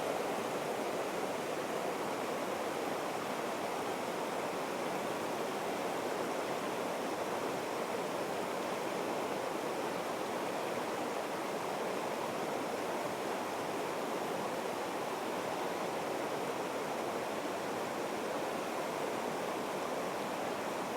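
Steady rush of flowing stream water, an even noise that holds at the same level throughout.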